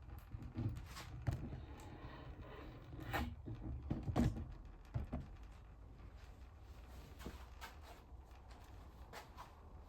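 Scattered knocks and clunks, the loudest about four seconds in, over a low steady rumble.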